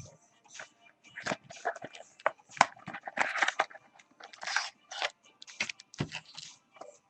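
Handling a heavy framed trading card and its packaging: a run of sharp clicks and knocks mixed with short bursts of plastic rustling.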